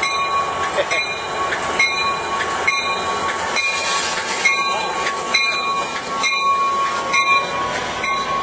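Amtrak Pacific Surfliner train, led by an F59PHI diesel locomotive, passing close by at speed with a dense rumble of wheels on rail and a steady high whine. A bell rings about once a second throughout.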